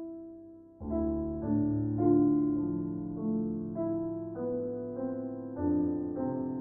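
Background piano music: single notes struck one after another and left to fade, with fuller chords coming in about a second in and again near the end.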